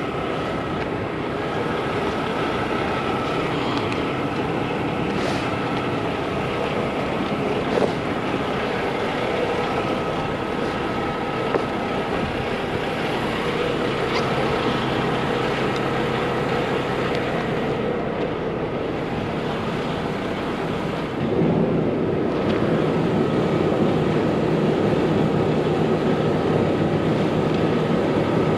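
Steady hum of an idling semi truck's engine, with wind noise on the microphone. The sound shifts and gets a little louder about 21 seconds in.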